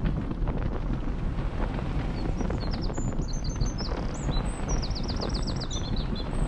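Outdoor background ambience: a steady low rumble with small birds chirping over it from a couple of seconds in, including a quick run of repeated trilled notes about five seconds in.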